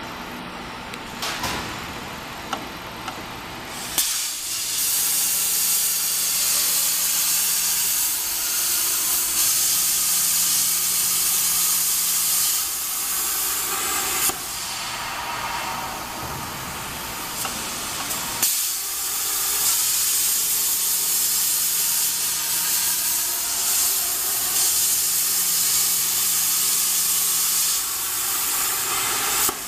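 CNC plasma cutter's torch arc hissing loudly as it cuts a metal tube, starting about four seconds in after a quieter stretch with a few clicks, with brief breaks around the middle. A faint low hum comes and goes under the hiss.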